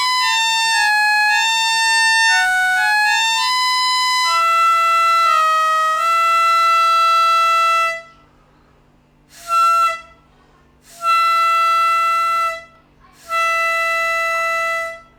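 Cleaned reed organ reeds sounded one at a time, playing a slow melody of single held notes that step down and back up. After about eight seconds it pauses, then one short note and two longer held notes on the same pitch end the tune.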